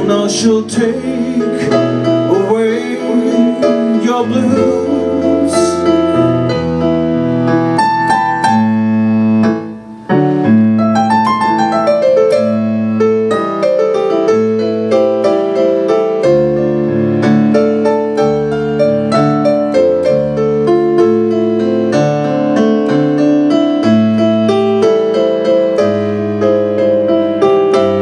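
Casio digital piano playing an instrumental break in a blues song: chords over a moving bass line, with a brief pause about ten seconds in.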